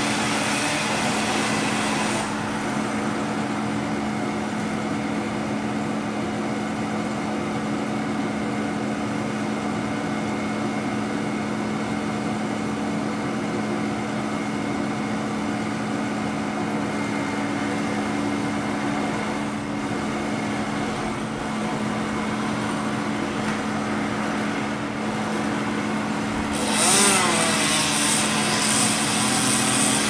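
Bucket truck's engine running steadily. A chainsaw is heard over it for the first two seconds, then starts up again and revs about 27 seconds in.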